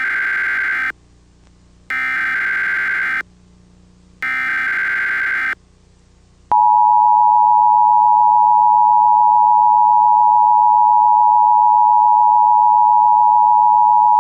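Emergency Alert System broadcast tones: three bursts of harsh digital data, about a second each with short gaps, then, about six and a half seconds in, the steady, piercing two-tone attention signal.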